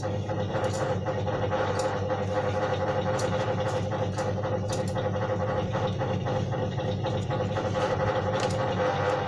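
A small motor running steadily with a constant hum, with faint light ticks every so often.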